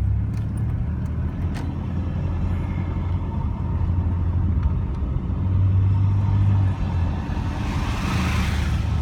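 Turbo-diesel Mitsubishi Triton engine running under throttle with a steady low rumble that swells about halfway through. Near the end a rushing hiss rises over it, the turbo flutter on lift-off that the driver is deliberately producing.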